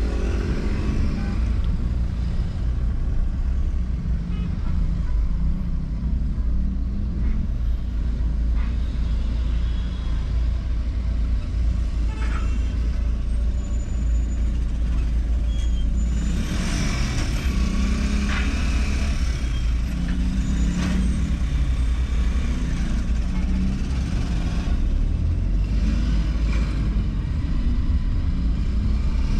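Car driving in city traffic: a steady low rumble of engine and road noise, with other vehicles running and passing close by. The traffic noise grows louder for several seconds about halfway through.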